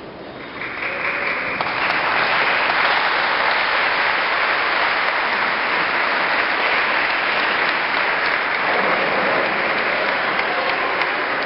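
Church congregation applauding. The clapping swells over the first two seconds, then holds steady.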